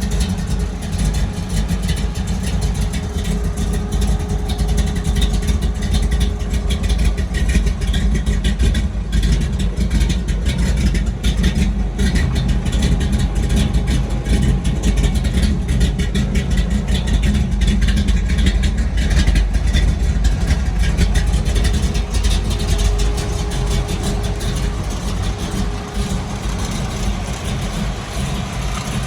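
1969 Chevrolet Camaro's 540-cubic-inch big-block V8 running, a deep, steady exhaust note with small rises and dips in loudness.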